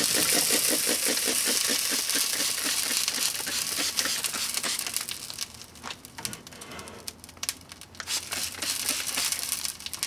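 Plastic singing toilet paper holder burning inside a microwave oven: a dense crackling hiss that fades after about four seconds into scattered pops and ticks as the flames die out.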